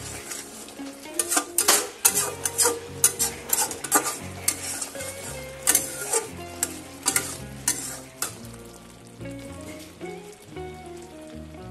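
Metal spatula scraping and knocking against a steel pan as it stirs a thick mixture of chhena, ghee and sugar (makha sandesh) nearly done cooking. The clicks are irregular, thicker in the first part and fewer toward the end, over a soft sizzle from the bubbling mixture.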